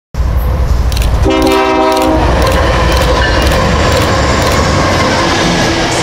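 Freight train passing: a diesel locomotive's air horn sounds one chord for about a second, over the steady rumble of the train and a regular clicking of wheels over rail joints, about twice a second.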